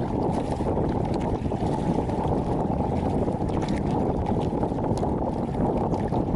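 Strong headwind buffeting the microphone out on the water: a steady, loud low rumble, with faint splashes of water now and then.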